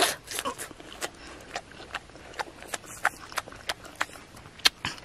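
Close-up chewing of ripe jackfruit flesh: wet mouth smacks and lip clicks, about three a second, with a louder bite-and-smack at the start.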